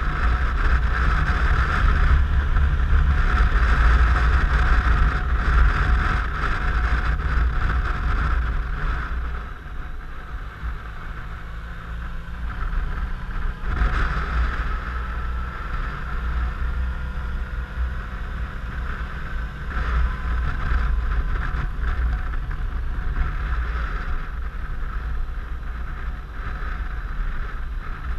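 Suzuki Burgman 650 maxi-scooter riding at road speed: its parallel-twin engine runs steadily under loud wind rumble on the microphone. The wind noise drops about ten seconds in, leaving the engine's hum plainer, with a brief rising whine a few seconds later.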